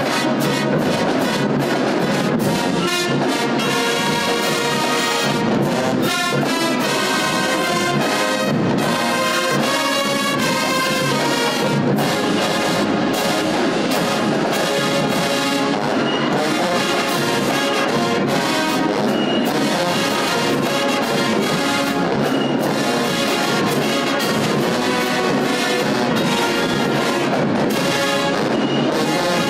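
A marching band playing: brass with sousaphones and trumpets, plus saxophones, clarinets and flutes, at a steady, loud level.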